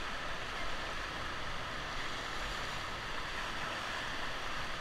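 River water rushing steadily around a raft on whitewater, an even hiss with no breaks.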